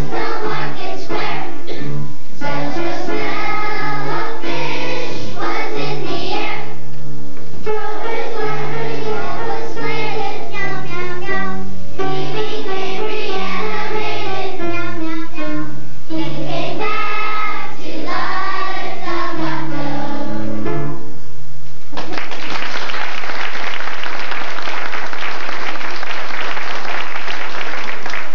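Children's choir singing to instrumental accompaniment; the song ends about three quarters of the way through and is followed by audience applause.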